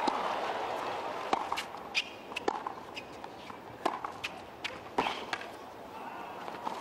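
Tennis rally on a hard court: sharp pops of racket strings striking the ball and the ball bouncing, coming at uneven gaps of about half a second to a second, over a hushed crowd.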